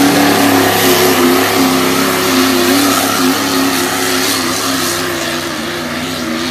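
A turbo-diesel pickup truck's engine running flat out under heavy load as it drags a pulling sled, with one steady engine note that wavers a little and fades slightly as the truck pulls away.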